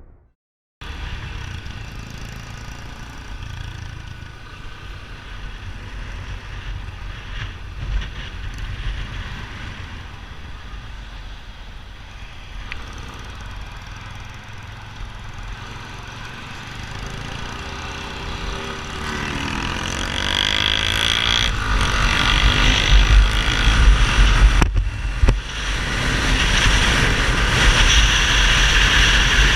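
Yamaha XTZ 250 Ténéré's single-cylinder four-stroke engine running through an aftermarket Roncar 2Way exhaust. It is steady and fairly low at first, then revs up and down and grows louder from about two-thirds of the way in.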